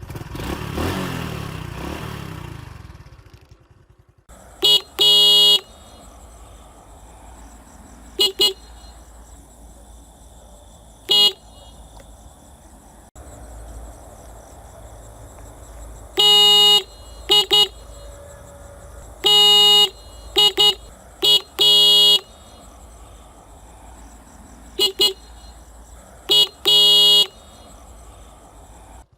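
Motorcycle's electric horn beeped over and over, in short taps and half-second presses, several of them in quick pairs. A rushing noise fills the first few seconds and fades before the beeps begin.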